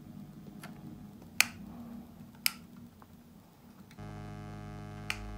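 Two sharp clicks as a capacitor's leads are pushed against and into the holes of a circuit board, then about four seconds in a steady electrical buzz starts abruptly and cuts off about two seconds later: the phone's built-in microphone buzzing, because the external microphone was not connected.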